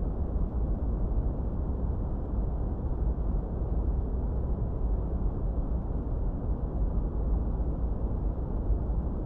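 Steady, unbroken study noise, deep and muffled, with most of its weight in the low end and almost nothing high: brown noise rather than bright white hiss. It does not change throughout.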